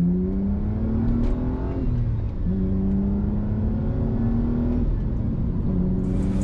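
BMW E90 328i's straight-six exhaust through a muffler delete with a titanium resonator, under acceleration. The engine note climbs steadily in pitch and falls away twice, about two seconds in and again near the end, before climbing again each time.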